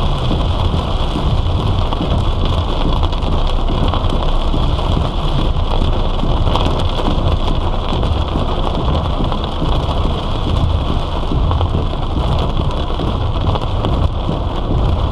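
Heavy monsoon rain falling on a moving vehicle, a steady dense hiss of rain over a continuous low road rumble.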